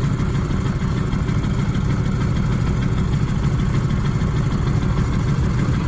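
The Lockheed Model 12's radial engines idling just after start-up, a steady, fast, low pulsing rumble with no change in speed.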